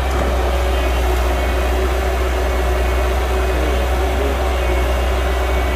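Heavy diesel earthmoving machinery running steadily: a deep, even engine hum with a faint steady whine above it and no change in pace.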